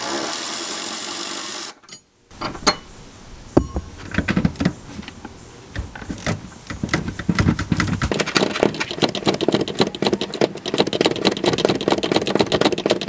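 Cordless power tool taking out bolts from the cab floor brackets. It runs steadily and cuts off abruptly about two seconds in. Knocks and clatter of loosened parts follow, then a rapid clicking rattle through the second half.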